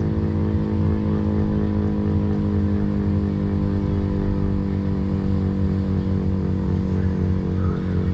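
Federal Signal STH-10 mechanical warning siren running at low rotor speed as it winds down: a steady, low, many-toned drone, sinking only very slowly in pitch.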